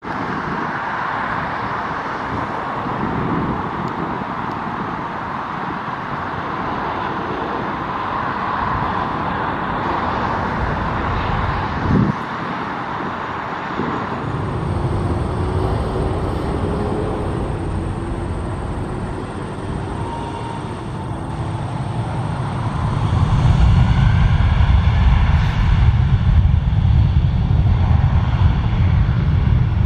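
Air Canada Express De Havilland Dash 8-400 turboprop passing low on approach, its engines and propellers droning, with a short knock partway through. About three-quarters of the way in, a WestJet Boeing 737's jet engines take over, growing louder with a deep rumble on the runway.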